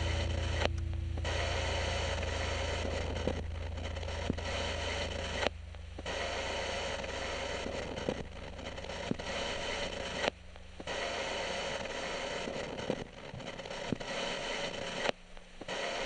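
Hiss of static with scattered crackles over a low hum that fades out toward the end. The noise cuts out for a moment about four times, roughly every five seconds.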